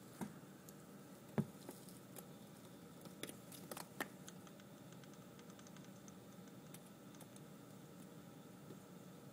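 A few light taps and clicks over a faint steady hiss. The sharpest comes about a second and a half in, and a quick cluster follows around three to four seconds in.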